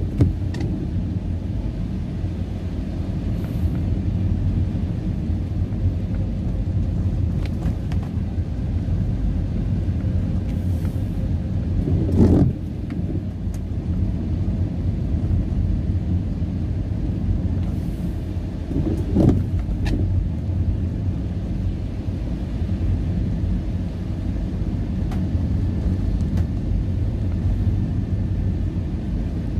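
Steady low rumble of a car's engine and tyres on a wet road, heard from inside the cabin, with two louder thumps about twelve and nineteen seconds in.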